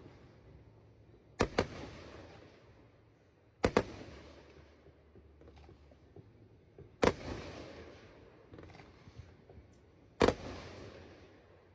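Aerial fireworks shells bursting: four sharp bangs about three seconds apart, the first two doubled, each trailing off in a rolling echo.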